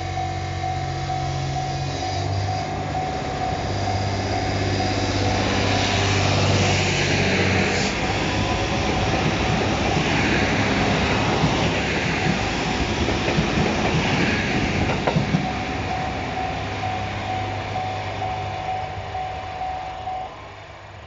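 JR East GV-E400 diesel-electric railcar pulling away, its diesel engine running very loud as it accelerates, then its wheels rattling over the rail joints as the cars pass close before it fades into the distance. A level-crossing warning sounds a steady tone that stops near the end.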